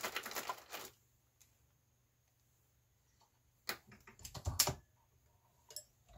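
Small hard clicks and rattles of metal reloading parts being handled, dense for about the first second. After a pause comes a second cluster of clicks with a duller knock as a cartridge is set on the shell plate of a Hornady Lock-N-Load progressive press and the press is cycled, then one last click.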